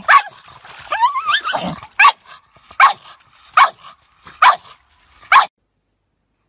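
A pug barking repeatedly. It starts with a quick run of yelps, some rising in pitch, then gives five sharp barks a little under a second apart, which stop about two-thirds of the way through.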